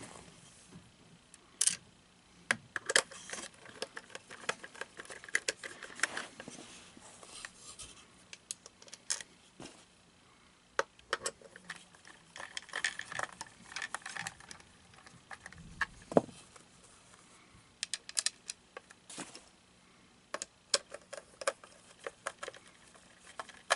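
A screwdriver turning screws into the hollow plastic shell of an animatronic toy toilet's head, with scattered sharp clicks, scrapes and plastic knocks as the parts are handled, separated by short quiet gaps.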